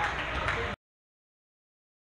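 Echoing gym noise of voices with a couple of sharp knocks, cut off abruptly to total silence less than a second in.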